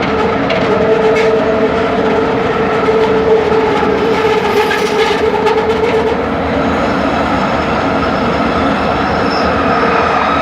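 Bombardier Innovia ART 200 train running, its linear induction motors whining over steady rolling noise. About six seconds in, the lower motor tone fades and a higher one takes over.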